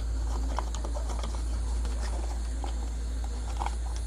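Faint scattered clicks and taps of hands handling a fan's plastic motor housing, over a steady low hum.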